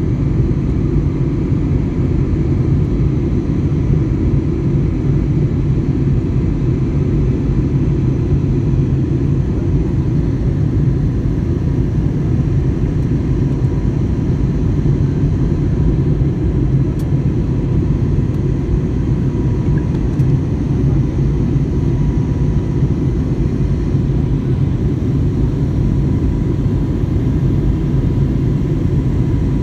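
Jet airliner cabin noise heard from a window seat during the climb after takeoff: the engines and rushing airflow make a steady, deep roar with a faint steady hum higher up, unchanging throughout.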